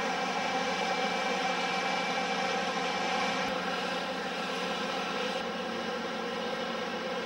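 Aircraft engine running steadily: an even, droning hum, with a faint high whine in the first few seconds.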